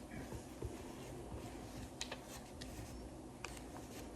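Faint handling sounds of yarn being tied through a plastic fidget spinner: soft rustling with a few light clicks.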